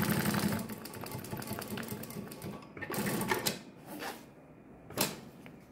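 Industrial sewing machine stitching a hem through a compensating presser foot, its steady run stopping under a second in. Then come the rustle of the fabric being drawn out from under the foot and a few light clicks, one sharper click near the end.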